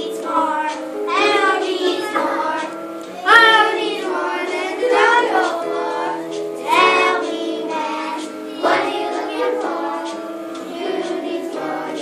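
A young girl singing a song with a musical accompaniment of steady, held notes.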